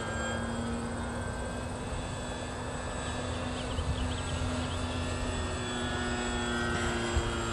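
Small propeller-driven airplane flying past, its engine a steady drone that shifts to a higher note about five seconds in.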